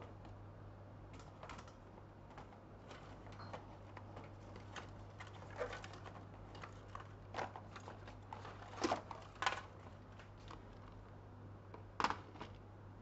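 Computer keys tapped and clicked now and then, with a few louder taps in the middle and one near the end, over a steady low hum.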